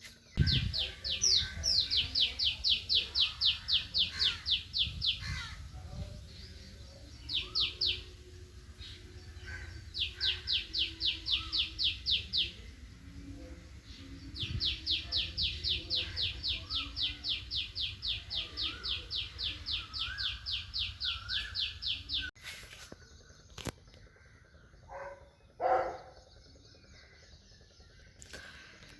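A bird calling in long series of rapid, evenly repeated high notes, about five a second. The series come in several bursts and stop about three quarters of the way through.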